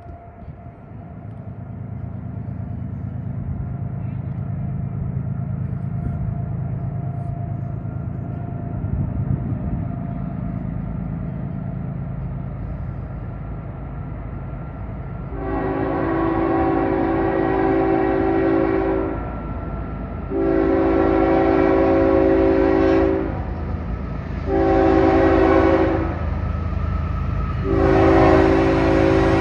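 CSX GE ES44AH diesel locomotive approaching a grade crossing: a low rumble builds, then about halfway through its air horn sounds the crossing signal in four blasts, long, long, short, long, the last still sounding at the end.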